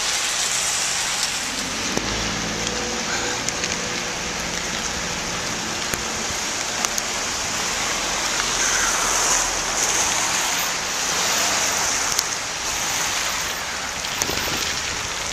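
Heavy rain falling on a wet road and pavement, a steady hiss throughout. A car drives past on the wet road, its low engine hum heard from about two seconds in until past the middle.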